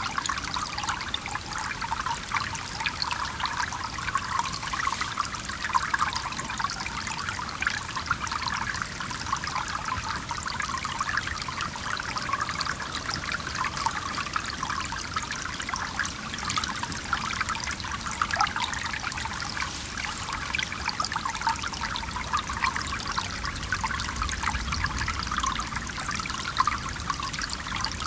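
Stream flowing steadily in the foreground, a dense, even babble of running water.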